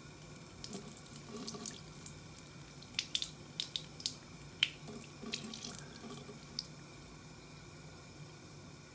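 A thin stream of water runs from a bathroom faucet into the sink. In the middle there is a run of short, sharp splashes and clicks as a kitten drinks from the stream.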